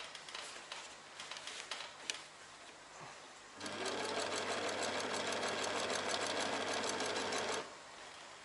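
Singer electric sewing machine stitching: after a few light clicks, the motor starts about three and a half seconds in, runs steadily with a rapid needle rhythm for about four seconds, then stops.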